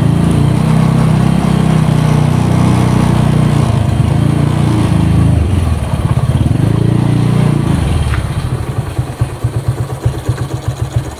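Honda Grand single-cylinder four-stroke engine, fitted in a Honda Win 100 and bored to 115 cc spec, running under way at a steady note. About five seconds in the note drops, rises briefly once more, then settles to an idle with even firing pulses for the last few seconds.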